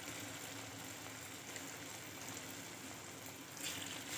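Wheat-flour batter fritters (gulgule) deep-frying in hot ghee in a kadai, with a steady sizzle and bubbling. The sizzle grows louder near the end as another spoonful of batter goes into the ghee.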